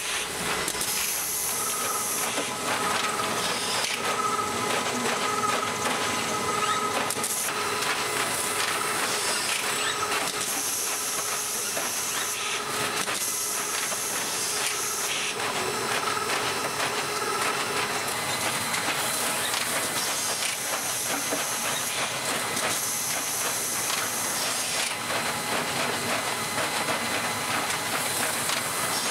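High-speed top-load cartoning machine running: a dense, rapid mechanical clatter under a steady hiss, with bursts of hissing air that start and stop every few seconds.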